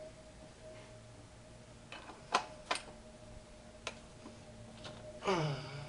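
A few sharp metal clicks and clinks as a wrench is fitted onto the engine's belt tensioner, followed near the end by a short sound falling in pitch.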